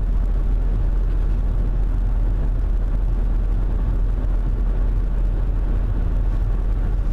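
Steady road and engine noise of a moving car heard from inside the cabin: a constant deep drone with no change.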